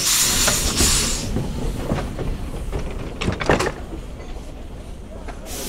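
Steam locomotive venting a loud hiss of steam that cuts off about a second in. Then a few metallic clanks and knocks over a low rumble, and the steam hiss starts again near the end.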